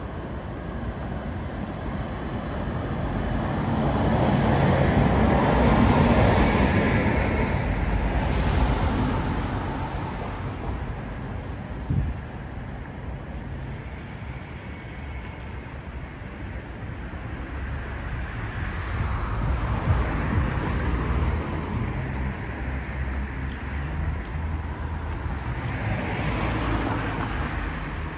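City street traffic: cars passing one after another, the sound swelling and fading, loudest a few seconds in. A single short knock comes near the middle.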